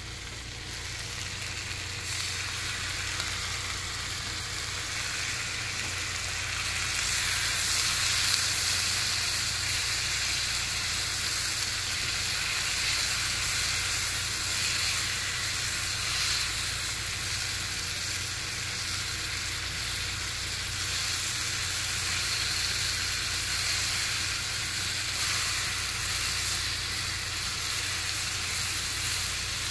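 Sliced onions sizzling as they fry in a HexClad hybrid pan over a gas burner. The sizzle is a steady hiss that gets louder about two seconds in and again around seven seconds.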